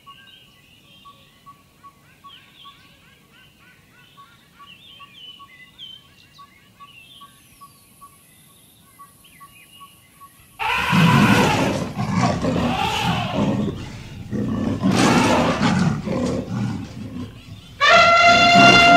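Small birds chirp softly at a waterhole, one of them repeating a short high note at a steady pace. About ten seconds in, loud animal roars and rumbling calls break out. Near the end an African elephant trumpets: a long, loud blast that falls in pitch as it ends.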